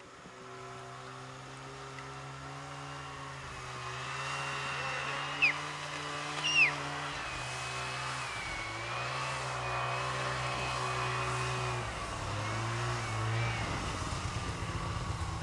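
Snowmobile engine running, growing steadily louder as it approaches, its note dropping about twelve seconds in. Two short, sharp high chirps cut in briefly about five and six and a half seconds in.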